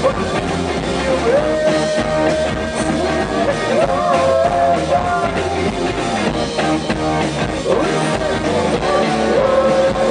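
Live rock band playing: a woman sings long held notes into a microphone over electric bass, guitar and a steady drum beat.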